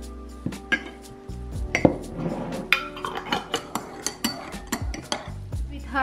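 Metal spoon clinking repeatedly against a cup while stirring, the clinks coming thick and fast from about two seconds in and thinning out near the end. Soft background music underneath.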